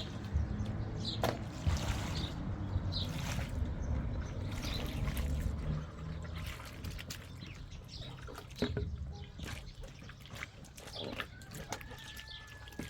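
Water trickling and dripping, with scattered small clicks and knocks and a low rumble that fades out about halfway through.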